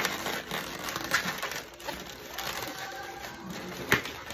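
Latex 260 twisting balloon squeaking and rubbing as hands press and twist the seventh petal into the flower, with a few sharp squeaks, the loudest near the end.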